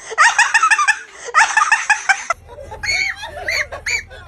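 High-pitched laughing in quick, repeated bursts. About two seconds in it cuts to shrieking and laughing in arched calls about twice a second, over a steady low rumble.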